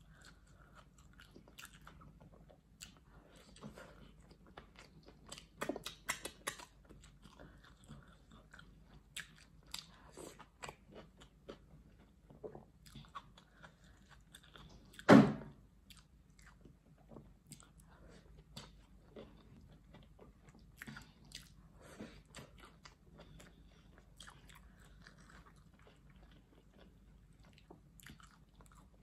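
A person chewing and biting fried plantain and fried egg eaten by hand, with many short mouth clicks throughout. One loud thump about halfway through.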